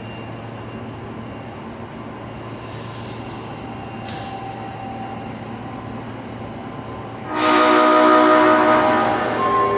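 Train noise for several seconds, then about seven seconds in the horn of an Osaka Metro 22 series train sounds loudly for about two seconds, several steady tones together. The horn on this set, 22615F, is known for sounding abnormal.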